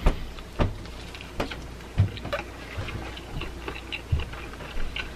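Close-miked chewing of a first bite of cheeseburger: soft, wet mouth smacks and clicks at an irregular pace, about one every half second to a second.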